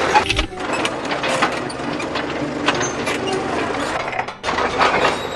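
Animated excavator sound effects: continuous mechanical clanking and rattling of machinery as the excavator carries a heavy rock, dipping briefly about four seconds in.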